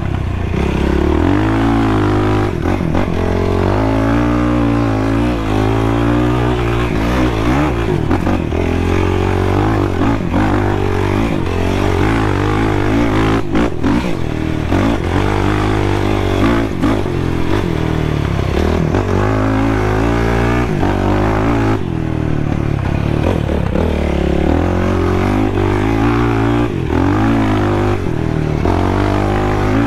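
Sport ATV engine being ridden hard: the revs climb and drop again and again, the pitch rising and falling every second or two throughout.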